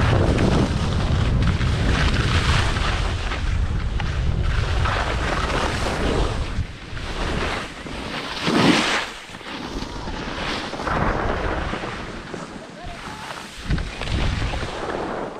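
Wind buffeting a GoPro's microphone while skiing downhill, heavy rumble at first, with skis scraping across packed snow in a series of turns that come as swells of hiss every couple of seconds. The loudest scrape comes about halfway through.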